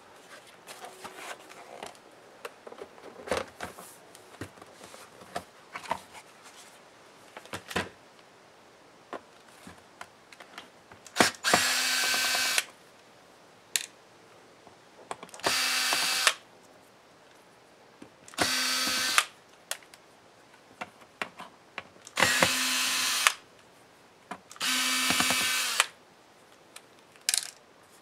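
Small electric screwdriver running in five short bursts of about a second each, backing out the laptop's bottom-panel screws. Scattered clicks and knocks of the laptop and screws being handled come before and between the bursts.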